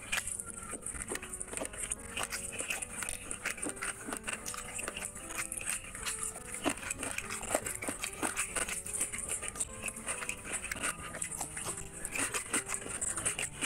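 Close-miked eating of chicken curry and rice by hand: wet chewing, lip-smacking and sticky mouth clicks, coming thick and fast.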